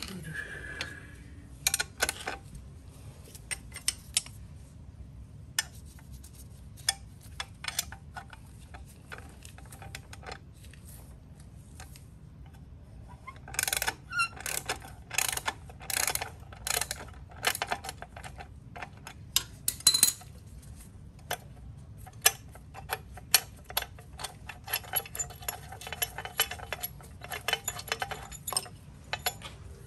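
Hands working on a motorcycle engine: scattered clicks and knocks of small metal and plastic parts being handled. There is a quick run of sharp clicks about halfway through, and a denser stretch of fast light clicking near the end.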